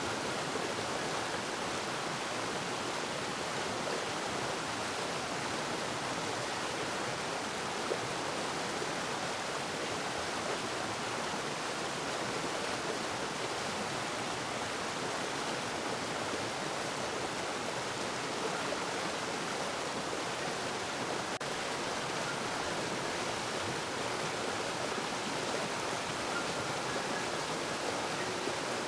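Steady rush of running water, a stream or cascade flowing without pause.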